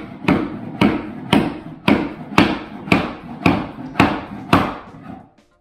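Hammer blows tapping a snap-together laminate flooring plank end-on to close the gap at its end joint: about nine sharp knocks, roughly two a second, that stop near the end as the joint seats.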